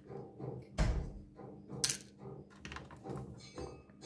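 Knocks and clicks of laptop parts being handled during disassembly: a dull thump about a second in, a sharp click near the middle and several lighter taps, over a faint steady hum.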